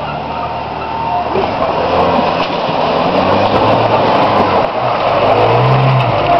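Short-wheelbase 4x4 SUV engine revving under load while its wheels spin and churn through mud and leaves, getting louder from about a second in as it drives past close by.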